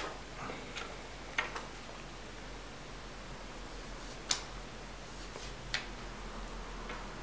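Peeling the protective plastic film off the back and camera bump of a phone: faint handling noise with four short, sharp clicks spaced a second or more apart.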